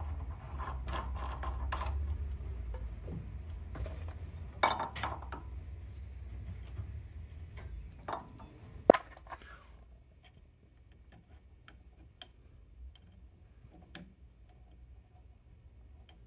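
Metal clinks and knocks of a hook spanner wrench and parts being handled on a lathe's spindle pulley and nut, over a low steady hum. There is a sharp clank about halfway in and a louder metallic clank with a short ring about nine seconds in; after about ten seconds only faint scattered ticks remain.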